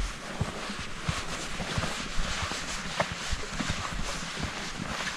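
Footsteps of a hiker walking on a mountain trail: soft, irregular steps over a steady background hiss.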